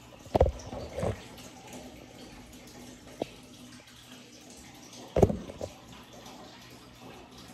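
A few dull thumps and knocks from handling, with hands and arm bumping the table and the phone: about half a second in, again at one second, a small click near three seconds, and another thump just after five seconds, over a faint steady hiss.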